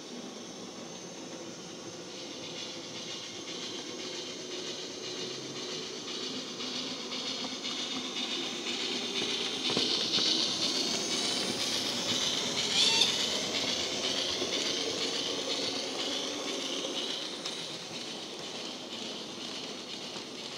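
Model Kerr Stuart Victory tank locomotive's DCC sound decoder playing steam chuffing and hiss through its small built-in speaker, growing louder to a peak about halfway through and then fading as the train runs past, with the wagons' wheels running on the rails.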